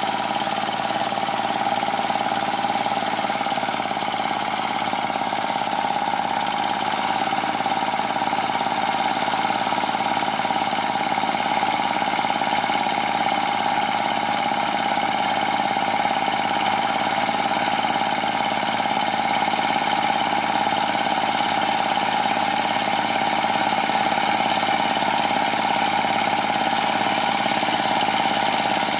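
Chinese D30 diesel engine of a water-channel ditching machine running steadily under load as it digs through a wet rice field.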